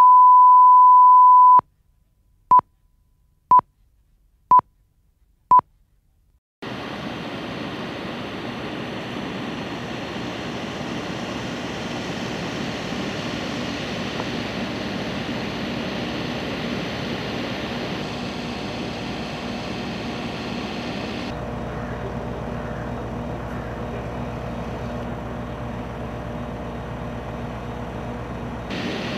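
A broadcast line-up tone: a steady 1 kHz tone for about a second and a half, then four short beeps a second apart counting down, then a few seconds of silence. From about six seconds in comes steady outdoor background noise with a faint hum, changing character about two-thirds of the way through.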